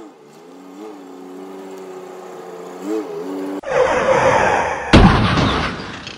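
A vehicle engine running steadily with a few brief revs. About three and a half seconds in, it cuts to a loud rushing intro sound effect, with one heavy slam about a second later that dies away near the end.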